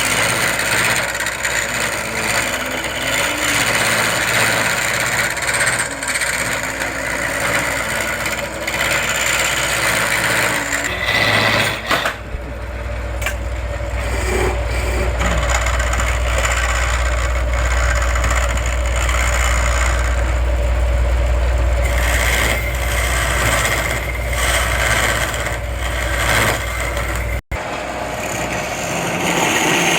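Wood lathe running with a steady low hum while a turning tool cuts the spinning wood, giving a loud rough hiss. The sound cuts out for an instant near the end.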